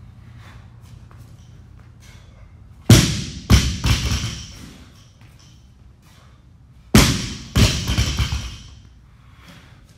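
Loaded barbell with rubber bumper plates dropped onto a rubber gym floor twice, about four seconds apart. Each drop lands with a loud thud, bounces with a second thud about half a second later, and rattles briefly as it settles.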